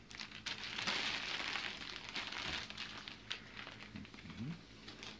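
Foil insulation liner and plastic packaging crinkling and rustling as they are handled, loudest about a second in, with many small crackles.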